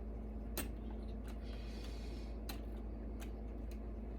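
A handful of light, separate clicks and taps as small server parts are handled, over a steady low hum.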